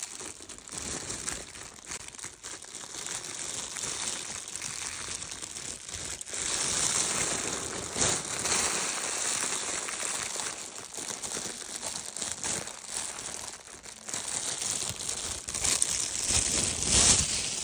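A clear plastic bag crinkling and rustling without a break as it is handled, a dense crackle that swells louder in places.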